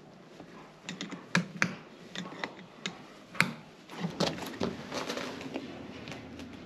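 Irregular light clicks and knocks from a farrier's metal hoof stand and tools being handled, a dozen or so spread over about four seconds, giving way to a softer rustling shuffle.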